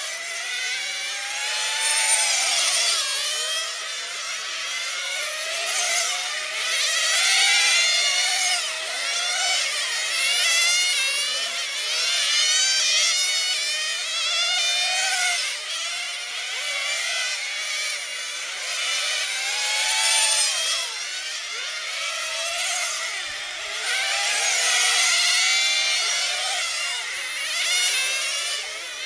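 Several 1/10-scale nitro touring cars racing, their small two-stroke glow engines whining at high revs. The pitches overlap and keep rising and falling as the cars accelerate down the straights and lift off for the corners.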